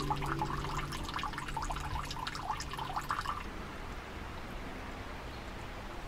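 Water pouring from a dragon-head spout into the stone basin of a shrine water-purification fountain (temizuya), with a steady splashing and dripping. The splashing dies down about halfway through, leaving a faint steady wash.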